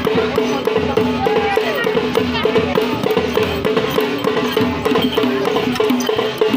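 Fast, steady drumming, several even strokes a second, with voices mixed in behind.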